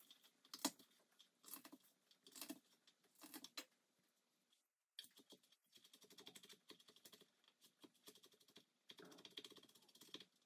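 Faint taps of a chef's knife chopping garlic cloves on a plastic cutting board: a few scattered taps at first, then a quick run of rapid chopping from about halfway.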